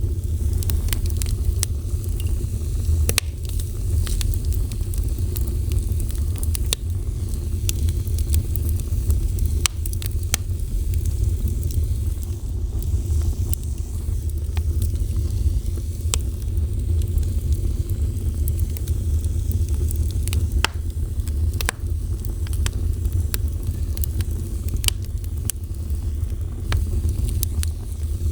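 A fire burning, with a steady low rumble of flames and irregular sharp crackles and pops scattered throughout.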